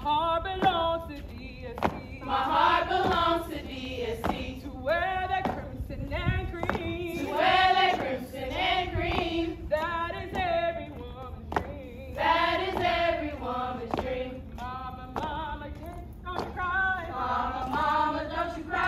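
A group of women singing a song together in unison, phrase after phrase, with a few sharp clicks between phrases.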